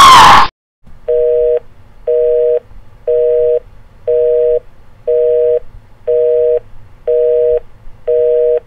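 A loud shriek falling in pitch cuts off sharply half a second in. Then a North American telephone busy signal beeps about once a second, eight times, each beep a two-tone chord half a second long, over a faint line hum.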